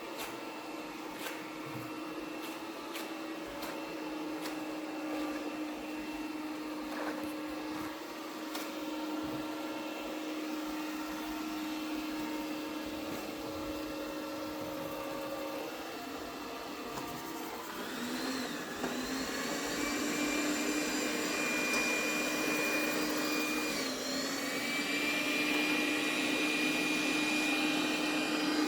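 Cuckoo robot vacuum running as it cleans, its suction motor humming steadily with a few light clicks. About two-thirds of the way through, the motor spins up to a higher, louder whine, which dips briefly once and then holds steady.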